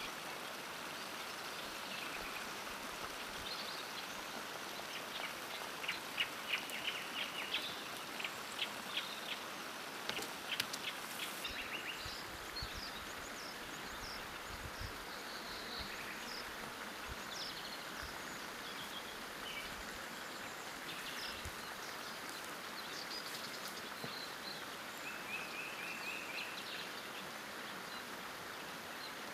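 Outdoor ambience: a steady hiss with scattered short bird chirps, and runs of small clicks and knocks about six to eight seconds in and again around ten to twelve seconds.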